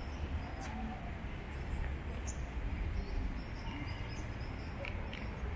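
Outdoor pond-side ambience: a steady high-pitched insect drone with a few short, faint bird chirps over a low background rumble.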